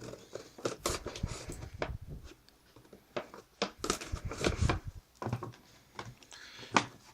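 A headphone box being opened by hand: irregular scrapes, rustles and clicks of cardboard and clear plastic packaging.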